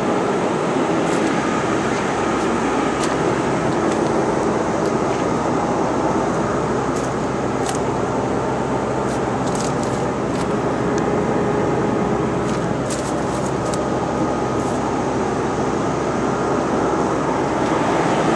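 Marley cooling towers and a Trane Odyssey HVAC unit running: a steady rushing noise with faint steady hums under it, and a few faint high ticks around the middle.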